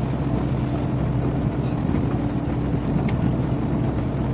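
Vehicle engine idling steadily, heard from inside the cab.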